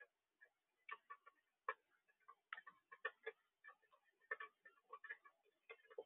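Faint, irregular light clicks and taps, several a second, uneven in strength, with a few louder ones about a second and three seconds in.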